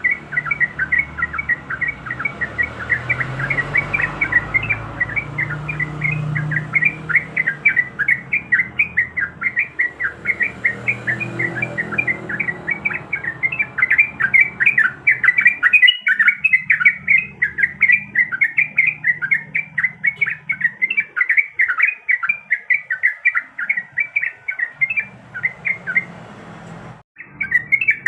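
Sooty-headed bulbul (trucuk) calling in a fast, unbroken chatter of short high notes, about four a second, breaking off briefly a second or so before the end.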